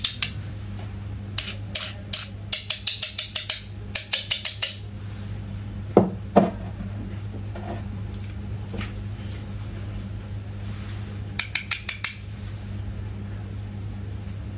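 Miniature clay toy pots clinking and tapping against each other in quick runs of light clicks, with two duller knocks about six seconds in as a pot is set down. A steady low hum runs underneath.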